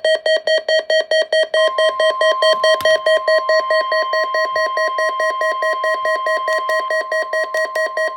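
NOAA Weather Radio alert for a required monthly test of the Emergency Alert System: a weather radio sounds a rapid, loud pulsing beep, and about a second and a half in a steady warning tone near 1 kHz joins it and holds.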